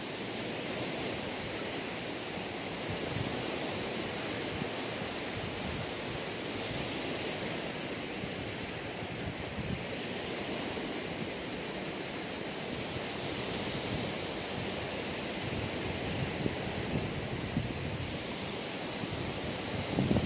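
Small waves washing onto a sandy beach, a steady rush of surf with wind.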